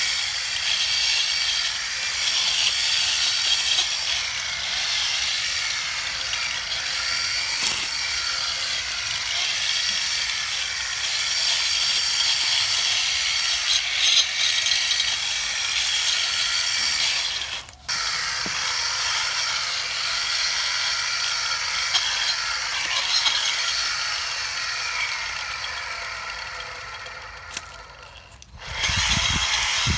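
Homemade lawn mower running: a steady, rattling mechanical whir. It breaks off sharply about eighteen seconds in, and near the end it dies down before picking up again.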